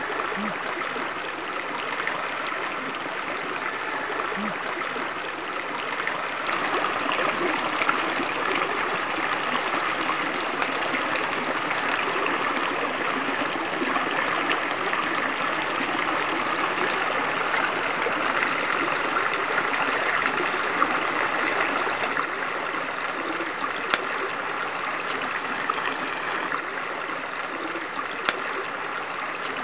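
A river or stream flowing with a steady rushing and trickling of water, with a few faint clicks in the last third.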